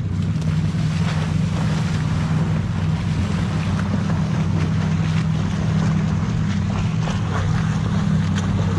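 Splashing as two swimmers dive into lake water and swim hard with churning strokes, over a steady low motor hum.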